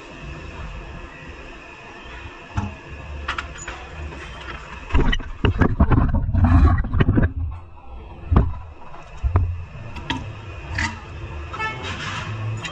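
Metal knocks and clatter of brake parts being handled, a brake disc and caliper being fitted to a car's front wheel hub: a burst of heavy knocks in the middle, then a few single sharp clicks, over a steady background hum.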